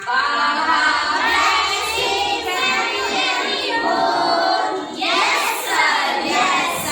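A group of young children singing together in unison, many voices at once, with a short break about five seconds in.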